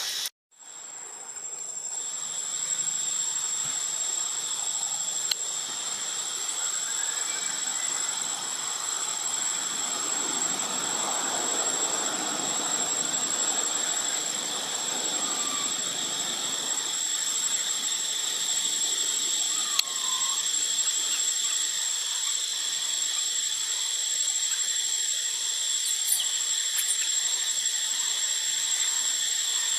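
Steady high-pitched insect drone, cicadas or crickets, over an even hiss, with a few faint short chirps.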